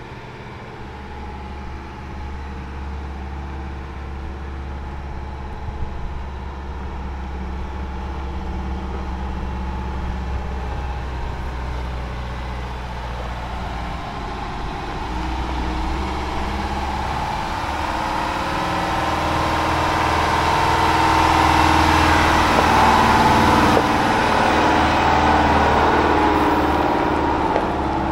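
Diesel engine of an M1070 8x8 heavy equipment transporter tractor running as the truck drives over gravel, growing louder as it approaches and loudest about 22 to 24 seconds in.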